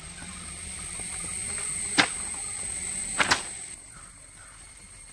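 A steady high-pitched insect drone that swells and then drops away about three-quarters of the way through. Three sharp clicks cut across it, one about two seconds in and two close together a little after three seconds.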